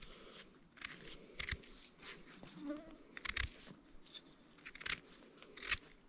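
Knife cutting through and trimming a mushroom's stem: several short, soft crunches and scrapes at irregular intervals.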